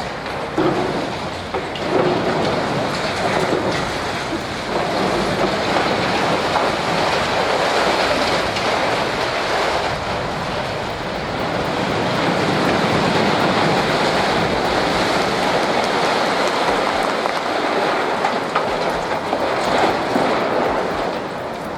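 Building demolition: a continuous dense clatter and rumble of concrete breaking and rubble falling, rising and falling a little in loudness.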